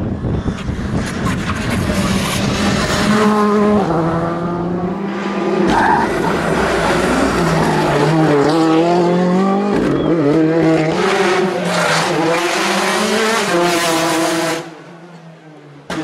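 Ford Fiesta R5 rally car's turbocharged four-cylinder engine at full stage pace, its note climbing hard and dropping again and again through lifts and gearchanges around a hairpin. The sound cuts out abruptly near the end, then another car's engine comes in.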